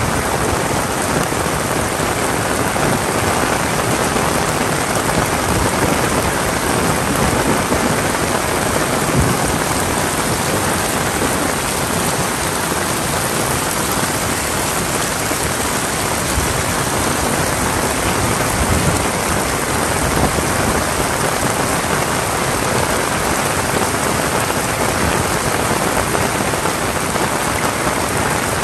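Heavy rain falling steadily, a dense even hiss of drops.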